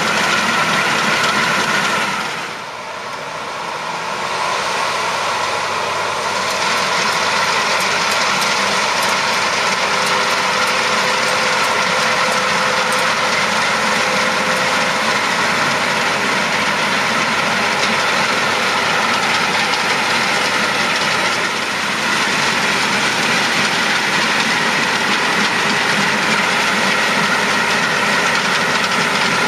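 Claas Lexion 750 combine harvester running while harvesting rice: a steady, loud mechanical din from its Caterpillar C13 six-cylinder diesel and threshing machinery. The sound drops briefly a couple of seconds in, then comes back to the same steady level.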